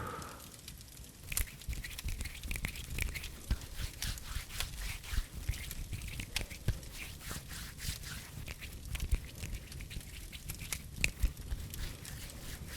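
Wood fire in a fireplace crackling, with frequent irregular sharp pops over a low rumble.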